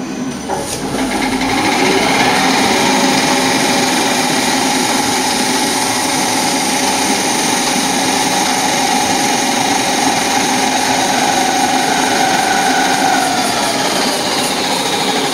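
MSN 70 aluminium foil and stretch film rewinding machine starting up: its motor and rollers speed up over the first two seconds with a rising whine. It then runs steadily as the foil winds from the large roll onto the small cores, and the whine drops in pitch near the end.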